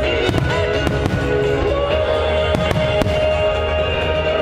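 Firework shells of a music-synchronised starmine barrage bursting in sharp bangs, several in quick succession, over loud music played with the show.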